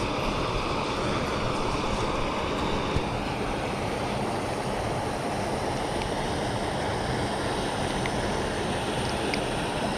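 Steady rush of creek water running through rocks.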